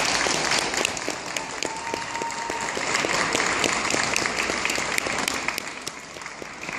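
Audience applauding: dense clapping that eases off a little near the end.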